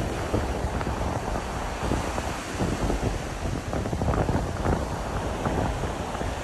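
Heavy wind buffeting the microphone, with surf washing onto the beach underneath.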